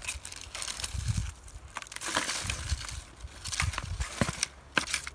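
Dry dead plant stems and leaves rustling and crackling as they are pulled out of potting soil by hand and dropped into a plastic tub, with a few sharp snaps and clicks near the end.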